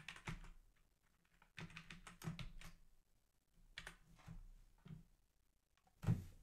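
Typing on a computer keyboard: several short runs of quick key clicks with pauses between them, then a single louder thump near the end.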